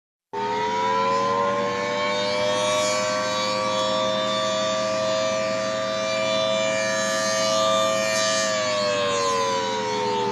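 Dual-tone outdoor warning siren sounding an alert: two close tones start abruptly, rise slightly to a steady pitch, then begin falling away about eight and a half seconds in as the siren winds down.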